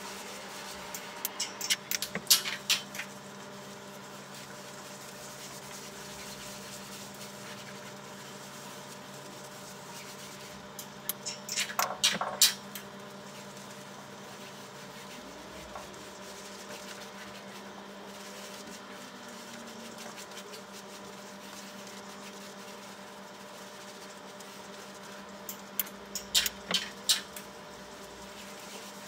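A steady low hum with a few fixed faint tones, broken three times by short bursts of scratchy rubbing and clicking: about two seconds in, around twelve seconds in, and near the end.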